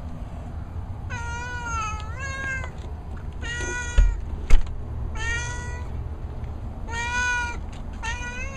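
Cat meowing repeatedly, about six meows each under a second long. Two dull thumps about halfway through.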